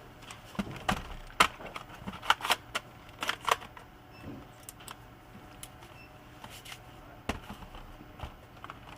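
A string of sharp clicks and knocks from a laptop being handled and flipped over, thickest in the first four seconds, with one more knock a little past seven seconds.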